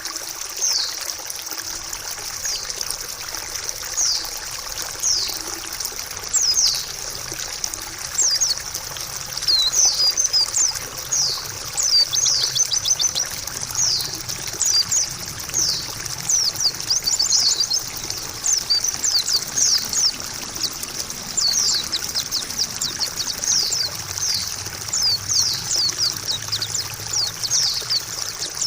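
Trickling, splashing water with a white-eye (pleci) twittering over it, a dense run of quick, high chirps that each slide downward.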